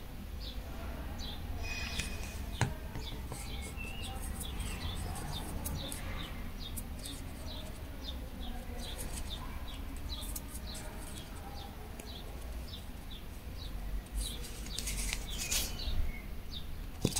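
A small bird chirping over and over, short high chirps a few times a second, over a low steady hum. There is one sharp click about two and a half seconds in.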